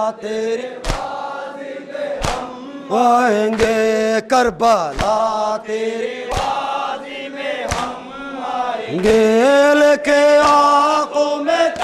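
A man leads a Muharram mourning chant (noha) over a microphone in long held lines, and a group of men chant along. Sharp slaps of chest-beating (matam) come in a steady beat about every one and a half seconds.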